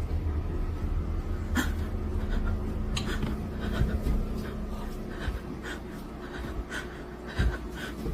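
Dog panting, with scattered light clicks over a low steady hum.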